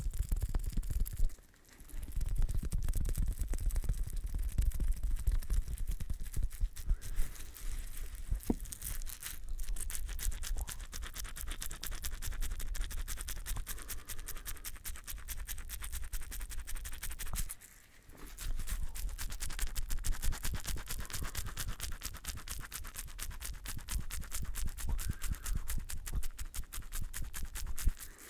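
Rapid, continuous scratchy brushing close to the microphone, pausing briefly about a second and a half in and again just past halfway.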